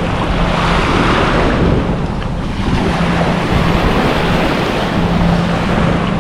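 Sea waves washing and surging, with wind buffeting the microphone and a steady low hum underneath.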